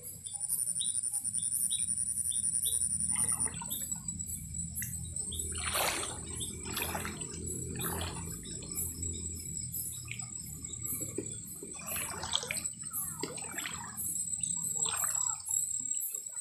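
Shallow stream water splashing and sloshing in irregular bursts as someone wades and gropes through it by hand, over a steady high chirring of night insects.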